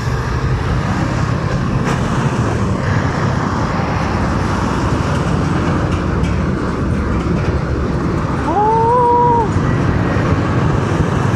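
Heavy-traffic road noise from a motorcycle moving slowly between running container trucks: a steady engine rumble and road noise. A short pitched tone rises and then holds for about a second, near the end.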